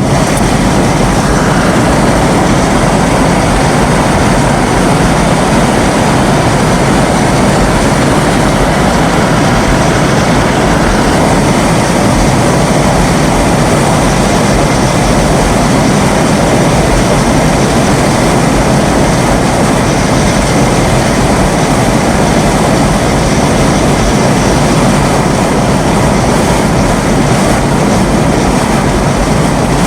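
Storm wind and heavy rain making a loud, steady rushing roar without a break.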